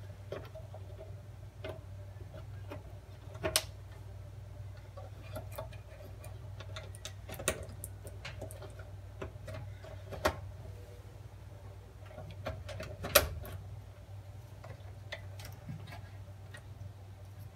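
Plastic wire-harness plugs being pushed onto the pin headers of an electric oven's control board: scattered small clicks and handling rattles, with a few sharper snaps, the loudest about two-thirds of the way through. A steady low hum runs underneath.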